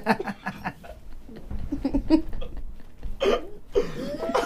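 A woman trying to talk with her mouth stuffed full of marshmallows: short, choked, hiccup-like mumbles and stifled giggles instead of clear words.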